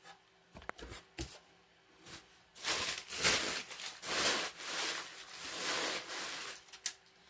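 A few light knocks, then about four seconds of rustling and rubbing from packaging being handled as a smoke alarm is taken out.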